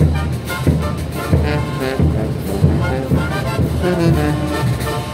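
Bolivian marching brass band of trumpets, trombones and sousaphones playing a morenada, with a steady drum beat of about one and a half strokes a second under the brass.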